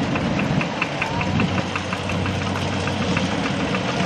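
Kubota RT120 two-wheel walk-behind tractor's single-cylinder diesel engine idling steadily, with a rapid, even diesel clatter over its low hum.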